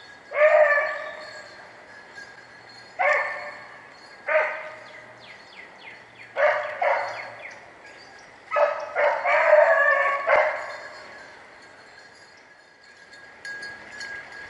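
Rabbit hounds baying on the trail of a swamp rabbit: a string of drawn-out, pitched bays with pauses of a second or two between them, the longest run near the end.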